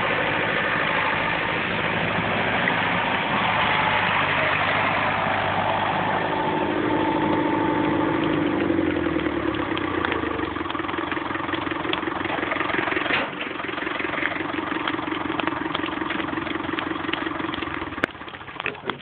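David Brown / Case loader tractor's engine running as the tractor backs away, with the crackle of burning brush growing clearer; the engine noise drops away near the end.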